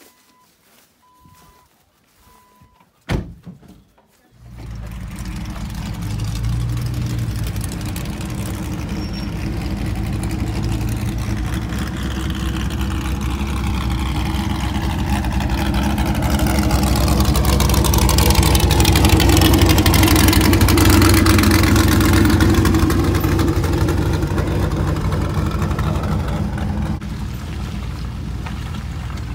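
A vehicle warning chime beeps about once a second, then a door shuts with a sharp click. A moment later a Jeep's engine starts and runs steadily as the Jeep drives off. The engine grows gradually louder and eases off a little near the end.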